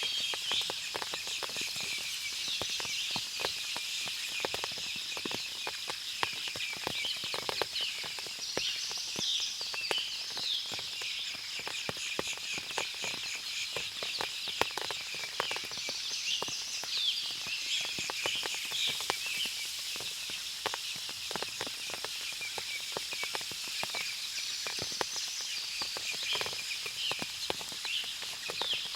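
Forest ambience after rain: many birds chirping and trilling together in a dense high chorus over a steady high tone, with scattered small clicks and drips throughout.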